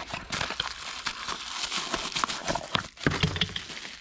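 Packaging of a new LiPo battery pack crinkling and rustling as it is opened by hand, with many small clicks and a heavier handling knock about three seconds in.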